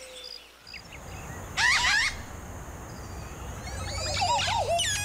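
A bird calling: a short, rapid warbled phrase about one and a half seconds in, then a longer, lower, more complex warbling phrase near four seconds, over steady background ambience. Faint, evenly spaced high chirps fade out in the first second.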